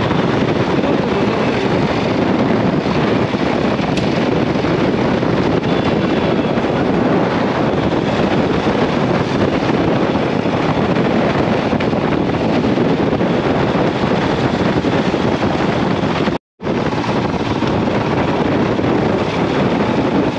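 Steady rush of wind over the camera microphone and road noise from a moving motorcycle. The sound drops out completely for an instant about three-quarters of the way through.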